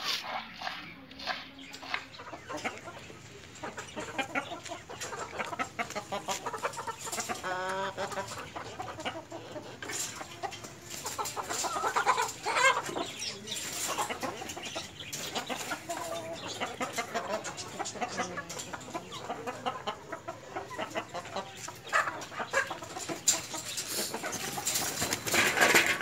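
White Leghorn chickens clucking as they feed, with scattered sharp taps. Near the start, a knife chopping greens on a wooden board.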